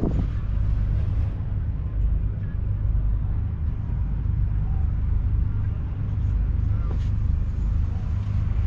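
John Deere 6R 195's 6.8-litre six-cylinder diesel engine running steadily, a deep even hum.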